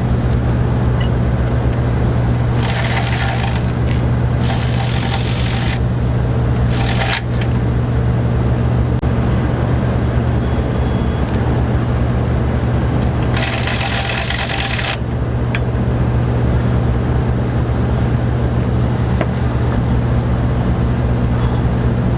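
Metal nuts clinking and rattling in a parts bag as they are handled, in several short bursts, over a steady low hum.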